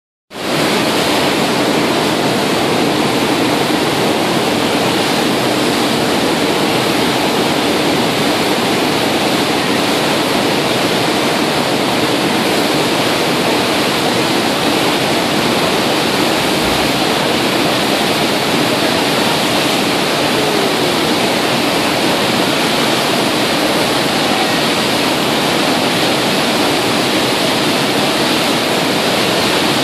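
Churning, foaming wake of an aircraft carrier at speed: a loud, steady rush of water, starting abruptly just after the beginning.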